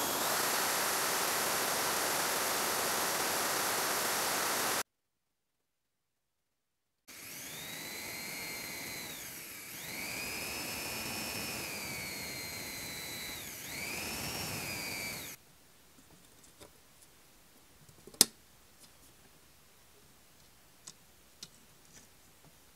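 Electric drill spinning a small metal toy-car axle pinched in sandpaper, a steady whir. After a short silent cut, the drill runs again with a whine that rises and falls as it speeds up and slows down, spinning a small wheel on the axle. Then small plastic clicks as the model's black plastic chassis is handled, one of them sharp.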